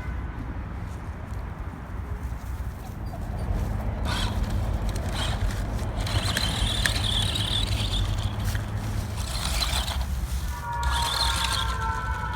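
Off-road RC car's electric motor whining and its tyres churning over dirt, under a steady low rumble. Near the end the whine slides down in pitch as the motor slows.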